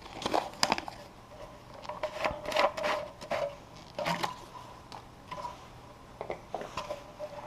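Hands handling objects: irregular knocks and clicks with rubbing and scraping, and short squeaks here and there.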